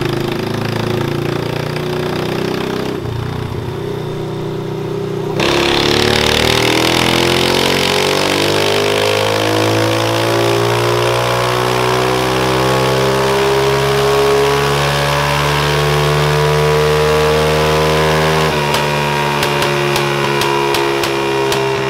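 Small single-cylinder engine of a Chinese youth four-wheeler doing a pull on a chassis dyno. It runs steadily at first. About five seconds in, the throttle opens and the pitch climbs slowly for some thirteen seconds under load. Near the end the throttle closes, the pitch drops, and the exhaust pops and crackles with backfire.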